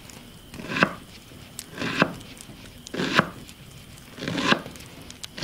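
Knife shredding a head of cabbage: four cuts a little over a second apart, each a short crunch ending in a sharp knock.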